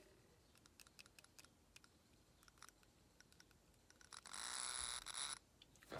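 Small rusty brushed DC motor from an RC boat, once seized, spinning up with a high-pitched whir for about a second when its clips make contact, then stopping. Before it come a few light clicks of alligator clips being fitted to the terminals.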